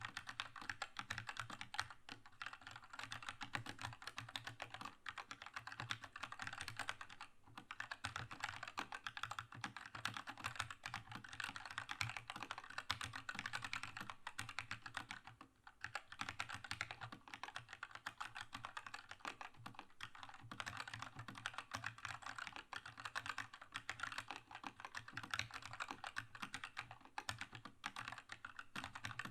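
Keychron K2 mechanical keyboard with red linear switches being typed on continuously, a fast stream of keystroke clacks, with short pauses about seven seconds in and again halfway through.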